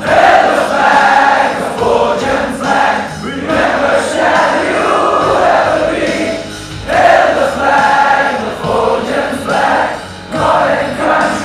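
A school anthem sung by a choir with instrumental backing, in phrases broken by short breaths every three to four seconds.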